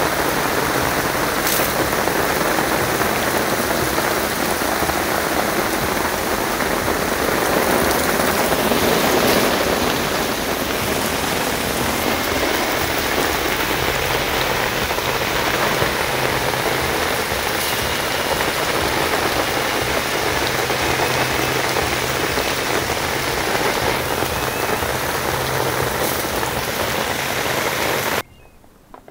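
Steady, fairly heavy rain falling on the woods, with a few sharper drop hits; it cuts off abruptly near the end.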